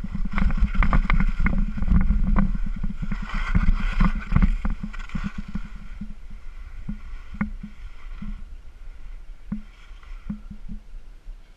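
Skis running and chattering over snow on a fast descent, with wind rumbling on the skier-worn camera's microphone and many short knocks as the skis hit the snow surface. Louder and busier over the first five seconds or so, then quieter with scattered knocks.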